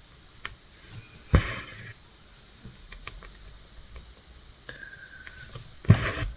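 Handling noise from cross stitching: two short knocks, about a second and a half in and near the end, with small clicks and rustles between.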